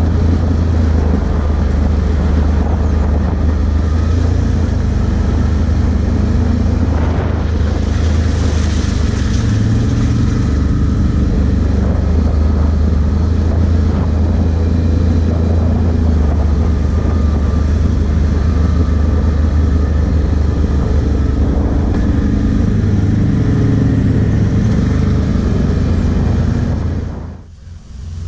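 Can-Am Outlander 1000 ATV's V-twin engine running steadily at trail speed, heard from on board. Near the end the sound dips out suddenly.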